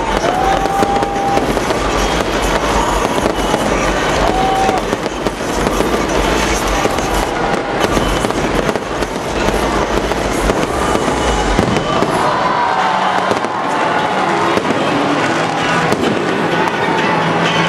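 Aerial fireworks going off in a continuous barrage of sharp pops and bangs. A low rumble under them drops away about twelve seconds in.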